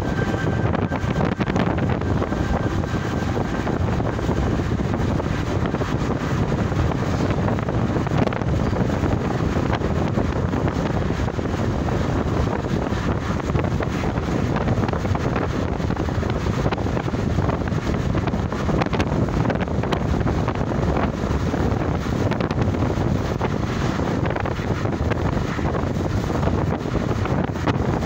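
Steady wind rush and road noise from a moving vehicle, with wind buffeting the microphone.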